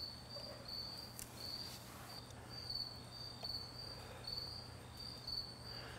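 A cricket chirping steadily, about two short high chirps a second, over a faint low hum.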